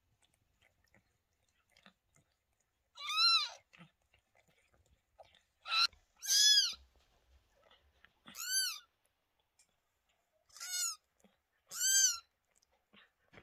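Newborn kittens mewing: about six short, high-pitched squeaky calls, each rising and then falling in pitch, spaced a second or two apart.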